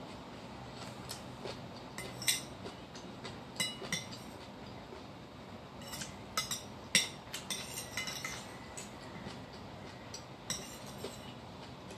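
A metal spoon clinking and scraping against a white ceramic bowl while scooping up rice, in a run of irregular sharp clinks. The loudest clink comes about seven seconds in.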